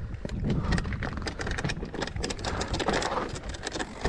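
Mountain bike tyres rolling over a rocky, gravelly trail: loose stones crunch, with many small clicks and rattles over a low rumble.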